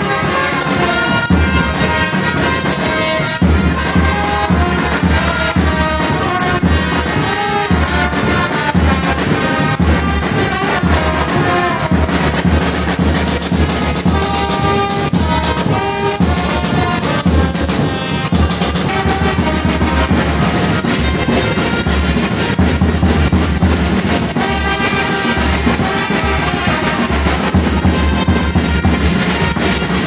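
A small brass band playing: trumpets carry the tune over a steady beat on a big bass drum.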